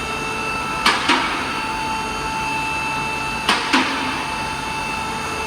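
Vehicle lift raising a car: a steady whine from the lift's motor and pump, with a pair of sharp metallic clicks about every two and a half seconds.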